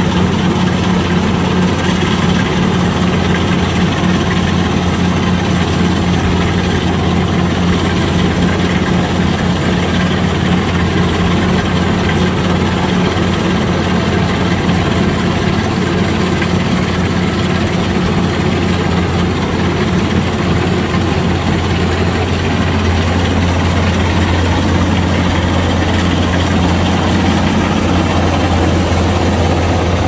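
Kubota DC-105X combine harvester running steadily with a low, even drone while it cuts and threshes standing rice.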